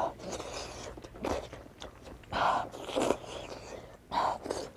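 Close-up eating sounds of a person taking pieces of fish from a hot soup with chopsticks: slurping, biting and chewing in several short bursts.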